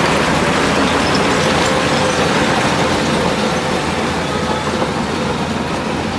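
Heavy diesel earthmoving machinery running steadily under load, a dense mechanical rumble with a faint steady whine, easing slightly toward the end.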